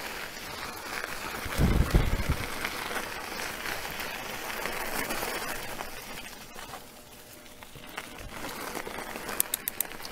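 Wide 2.8-inch mountain-bike tyres crunching slowly over loose gravel, a steady crackling. About two seconds in there is a short, louder low rumble on the microphone, and a few sharp clicks come near the end.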